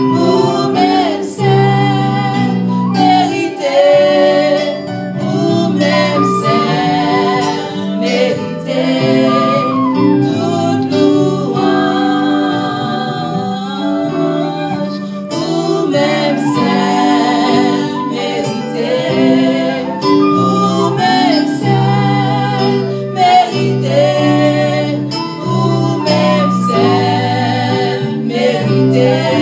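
Three women singing a Haitian Creole worship song together into microphones, over a steady instrumental accompaniment of held chords.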